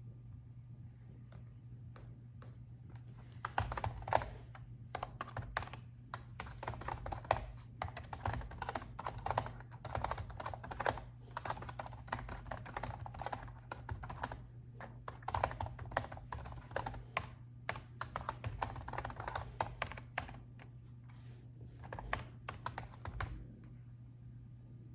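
Typing on a laptop keyboard: a few scattered key taps, then a long run of fast, continuous keystrokes that stops shortly before the end. A steady low hum runs underneath.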